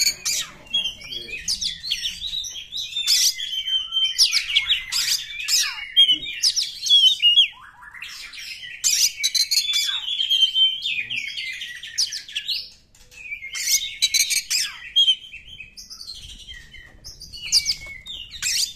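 Oriental magpie-robin (kacer) singing: a long run of rapid, varied whistled and chattering phrases laced with sharp clicky notes, broken by a couple of short pauses.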